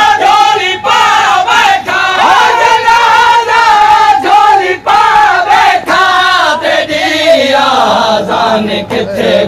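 A crowd of men chanting a Saraiki noha, a Shia mourning lament, in unison with a lead reciter. Through it runs a steady rhythm of hand slaps on chests (matam), about one to two a second.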